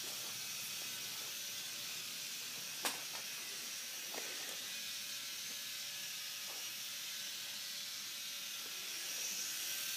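Quiet room tone with a steady hiss, broken by a single sharp click about three seconds in and a couple of faint ticks after it.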